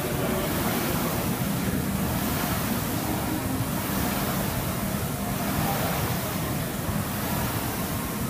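Concept2 indoor rowing machine's air-resistance flywheel fan whooshing as it spins, swelling and fading with each rowing stroke.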